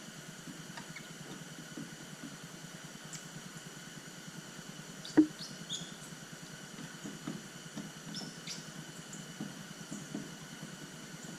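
Quiet room tone with faint handling noises, small ticks and short squeaks, and one sharp tap about five seconds in.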